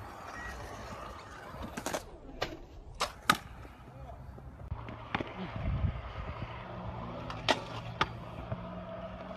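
Stunt scooter wheels rolling on concrete, with several sharp clacks as the deck and wheels hit the ground on trick landings. The loudest clack comes about three seconds in.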